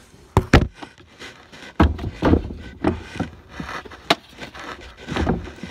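Irregular knocks and rubbing: a pair of sharp clicks about half a second in, then scattered thuds and scrapes every half second to a second.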